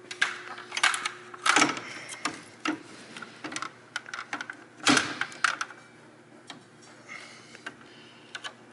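Irregular clicks, taps and clatters of hands and tools working on a SawStop table saw's blade and brake-cartridge area, with louder knocks about one and a half and five seconds in.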